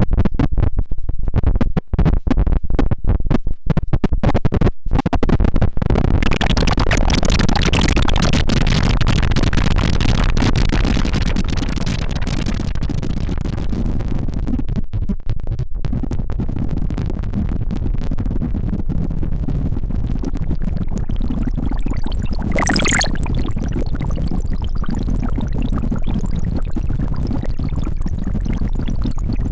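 Erica Synths Bassline bass synthesizer playing: a rapid run of short, choppy notes for the first few seconds, then a continuous noisy, gritty tone over a heavy bass. A little past the twenty-second mark a quick sweep falls from very high to low, and a thin high whine holds through the last part.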